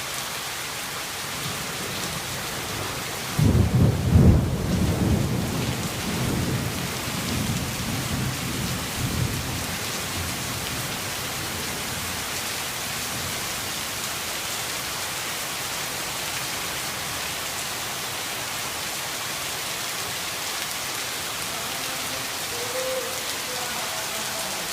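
Heavy rain falling steadily, with a low rumble of thunder that breaks in suddenly a few seconds in, is loudest at first and rolls away over about six seconds.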